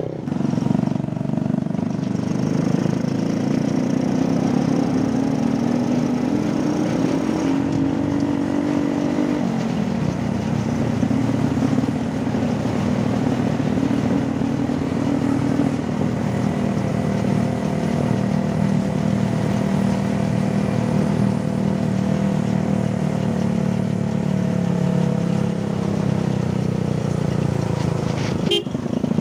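Motorcycle engine running while riding along a road. Its pitch climbs slowly, drops about a third of the way in, then stays steady.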